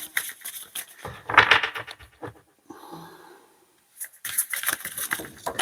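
Tarot cards being shuffled by hand: quick runs of cards rustling and slapping together, with a louder burst about a second and a half in and a short lull near the middle.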